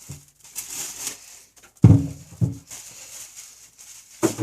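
Plastic wrap crinkling as it is peeled off a pair of sneakers, with a few short, loud, low voice-like sounds about two seconds in and again near the end.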